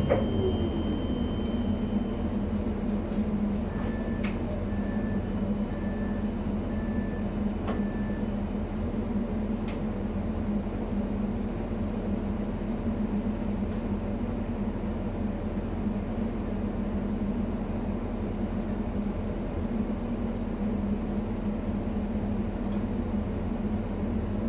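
Steady hum of a ČD class 640 RegioPanter electric multiple unit standing at a platform, heard from the driver's cab. About four seconds in, a run of short high beeps sounds for about four seconds, with a couple of faint clicks.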